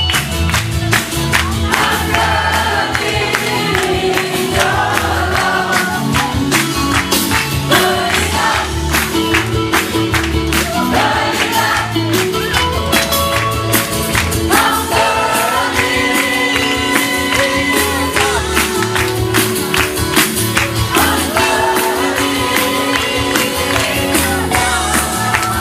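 Upbeat music with group singing over steady percussion and a pulsing bass line.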